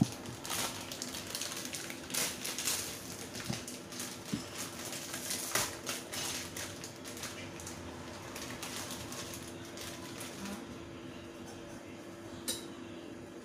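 Glass pot lid set down on a cooking pot with a clink, then water boiling under the lid with scattered ticks and light rattles, busiest in the first half. A steady low hum runs underneath.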